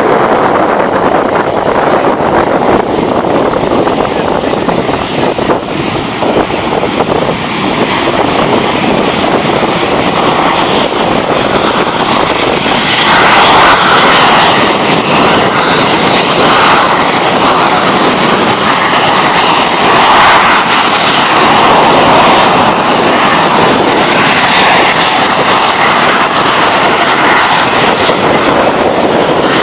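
Jet engines of the Snowbirds team's CT-114 Tutor trainers running on takeoff, a loud, steady roar that grows louder and brighter about halfway through.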